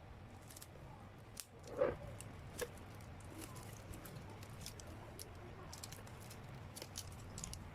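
Faint handling sounds of a sealed album being opened: scattered light clicks, rustles and scrapes, with a louder knock about two seconds in and a sharp click just after.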